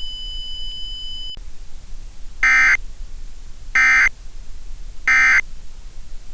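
Emergency Alert System end-of-message data tones: three identical short digital screeches, each about a third of a second and about 1.3 s apart, signalling the end of the alert. Before them a steady high tone cuts off with a click about a second and a half in, leaving faint hiss.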